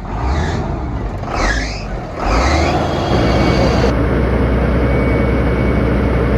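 Heavy truck engine running, growing much louder about two seconds in and then holding steady. Three short higher-pitched sounds come before it.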